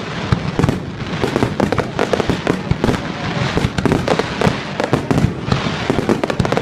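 Fireworks display going off in a dense, continuous barrage: many overlapping bangs and crackles, with rumbling booms beneath them and no gaps.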